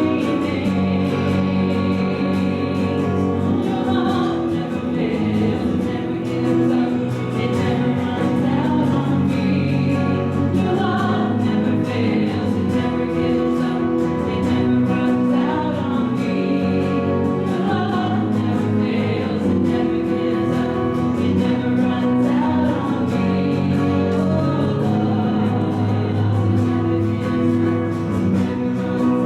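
A group of voices singing a church song together, with musical accompaniment, steadily.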